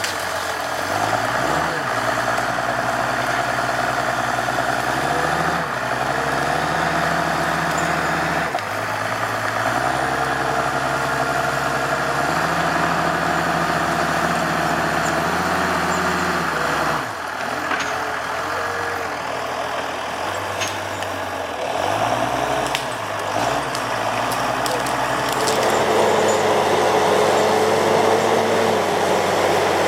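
Heavy diesel engine of a Timberjack forestry skidder working under load, its revs climbing and holding for several seconds at a time, then dropping. A sharp fall in revs comes a little past the middle, followed by several short blips of the throttle.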